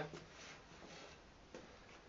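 Near silence: room tone, with one faint tick about one and a half seconds in.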